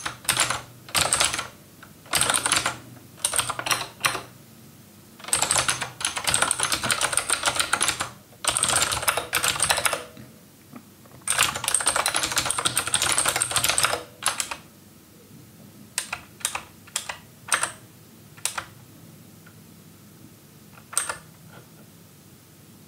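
Typing on a computer keyboard: quick bursts of rapid keystrokes for the first two-thirds, then only a few isolated key presses.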